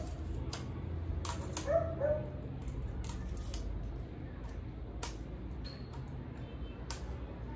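Telescopic tripod legs being extended: several sharp plastic clicks as the leg flip-locks are snapped open, with a short squeak about two seconds in.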